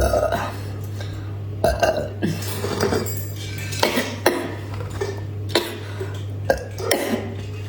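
Close-miked eating and drinking mouth sounds: a series of short gulps and smacks about a second apart, over a steady low hum.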